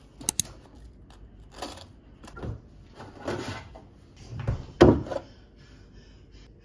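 Kitchen handling sounds at an open fridge: a plastic punnet of strawberries and a plastic milk jug set down on the worktop among fridge door and drawer noises. Two sharp clicks just after the start, then a string of knocks and plastic clatters, the loudest a knock about five seconds in.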